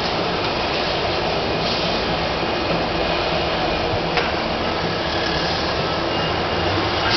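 Steady hum and rush of city street traffic heard from above, even throughout, with one faint click about four seconds in.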